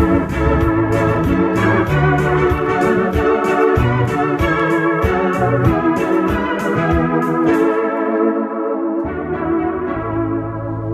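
Roland arranger keyboard played live: organ-toned chords over a bass line and a steady drum beat. About two-thirds of the way through, the drums drop out, leaving held chords over a low bass note.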